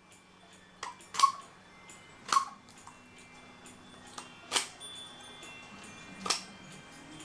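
Razor blade knife scoring the soft balsa-like wood of a cuckoo clock's whistle box, where the old bellows is attached, making five sharp, irregularly spaced clicks as the blade bites in, ready for the bellows to be knocked or pulled off.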